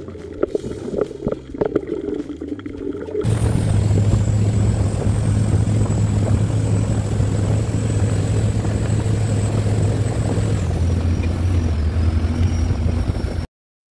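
For about three seconds, underwater scuba sounds: regulator bubbles gurgling with irregular knocks. Then a steady, loud engine hum, most likely the parasail tow boat's motor running at constant speed, with a thin high whine that steps down in pitch near the end. The sound stops suddenly shortly before the end.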